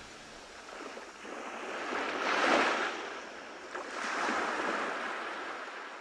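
Small ocean waves washing up a sandy beach, two swells of surf noise, the louder about two and a half seconds in and the next a little after four seconds.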